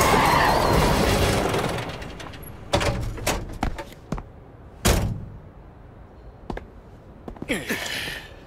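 Hard boots stepping onto dirt ground: a few separate heavy footfalls, the loudest about five seconds in, after a loud sound fades away over the first two seconds. Near the end comes a short breathy voice sound.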